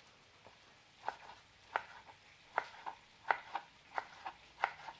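Kitchen knife slicing tomatoes and knocking on a wooden cutting board: a run of sharp taps, about six strong ones with softer ticks between, starting about a second in.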